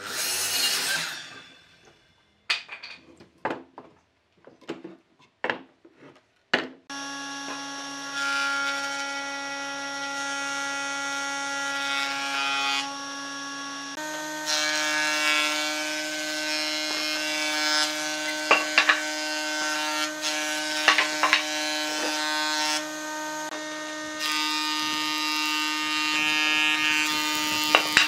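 A short rasping burst of cutting, then a few separate knocks of wood being handled. Then a combination machine's jointer-planer runs with a steady hum while boards are fed over its cutterhead, giving a rough planing noise with occasional sharp clicks.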